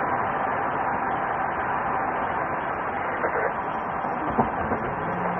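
Road and engine noise of a patrol car driving, heard from inside the car as a steady rush, with a few faint knocks in the second half.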